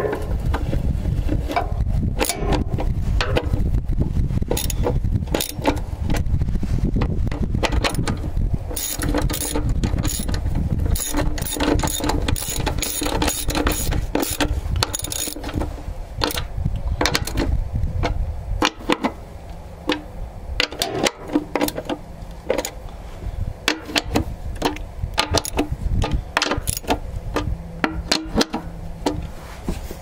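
Socket ratchet clicking in bursts as the bolts on the hose-fitting flanges are tightened. A low rumble runs underneath and drops away about two-thirds of the way through.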